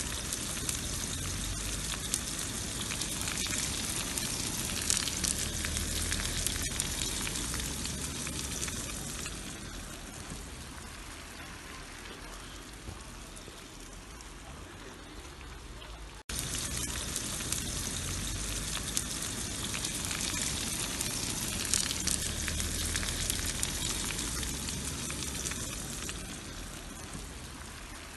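Slices of sucuk sizzling and crackling in hot oil in a frying pan, a dense, steady spatter of small pops. It dips quieter midway, cuts out for an instant about sixteen seconds in, then comes back loud and fades somewhat toward the end.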